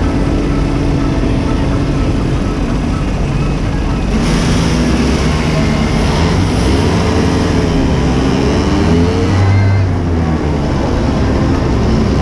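Small go-kart engines running as the karts drive along a street, the engine note rising and falling in pitch in the middle. A louder rush of noise comes in about four seconds in and eases off near ten seconds.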